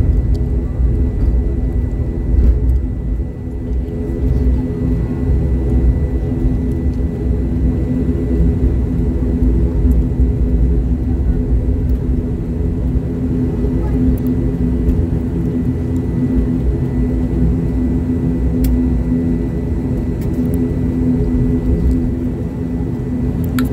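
ATR 72 twin turboprop engines and propellers running steadily at low power as the aircraft taxis, heard inside the cabin: an even, pitched hum over a low rumble.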